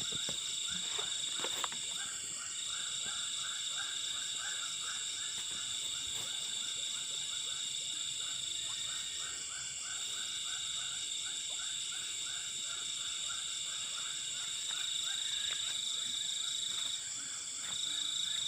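A frog chorus: croaking calls repeated at an even pace of about two or three a second, over a continuous high-pitched drone of night insects.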